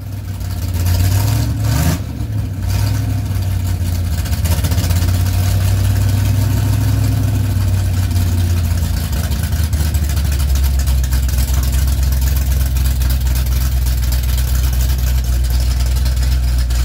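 Pontiac 455 V8 in a 1965 GTO, heard from behind the car: a short blip of the throttle about two seconds in, then a steady, deep idle rumble.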